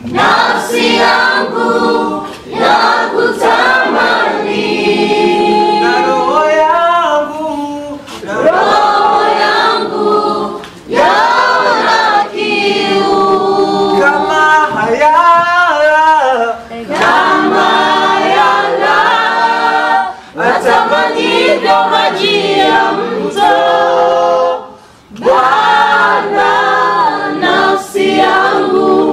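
A church congregation and worship singers singing together without instruments, in phrases broken by short pauses for breath.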